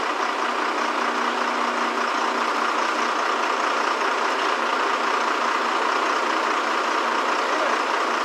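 Lifting crane's engine running steadily as it hoists a motorboat out of the water in slings.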